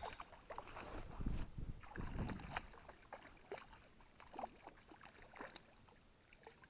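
Water splashing and sloshing as a small pike is reeled in and brought to hand on a spinning rod, with scattered clicks and knocks. The heaviest low splashes come in the first couple of seconds, then it grows quieter.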